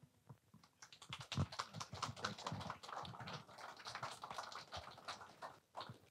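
Faint, scattered clapping from a congregation: a dense run of irregular claps that starts about a second in and dies away just before the end.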